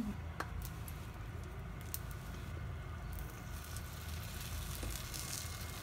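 A few light clicks over hot oil in a frying pan, then sizzling from about three seconds in as okra omelette batter is spooned into the oil.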